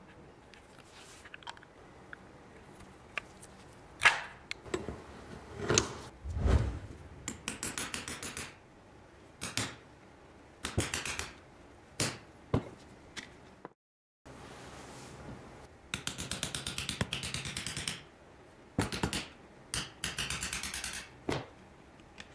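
Steel hand tools working on a cast brake caliper: a screwdriver and then a pry lever click, knock and scrape against the metal while a rubber boot is levered out of a bore. The scraping comes in short runs of quick, even strokes, broken up by separate sharp knocks.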